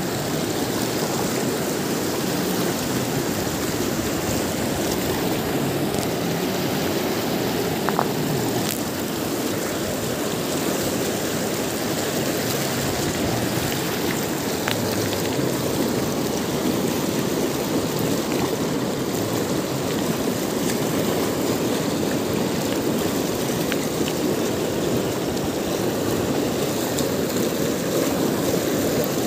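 Whitewater rapids of a fast mountain river rushing over boulders: a steady, unbroken rush of water, with a few faint clicks.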